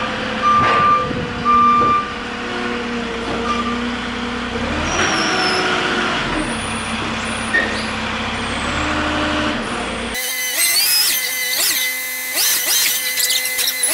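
Forklift engine running while it manoeuvres, with its reversing alarm beeping about twice a second during the first few seconds and a few pitch glides midway. About ten seconds in, the sound changes abruptly to a brighter one full of sliding pitches.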